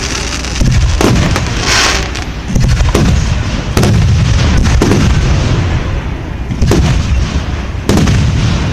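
Fireworks going off: a string of booms, roughly one a second, each with a low rumbling tail, and a hissing crackle about two seconds in.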